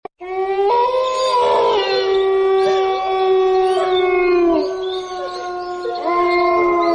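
Several canids howling in chorus: long, overlapping held howls at different pitches that bend down and fade about four and a half seconds in, then a fresh howl rises near the end.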